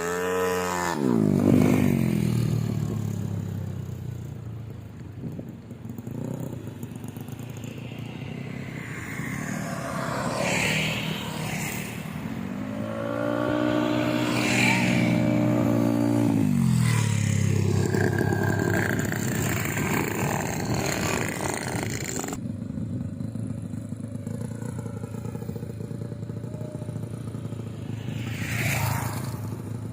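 Yamaha Mio scooter's single-cylinder four-stroke engine, bored up to about 200 cc for drag racing, being revved and idled. It drops from a rev at the start, runs low, then is blipped up and held for a few seconds in the middle before falling back to idle.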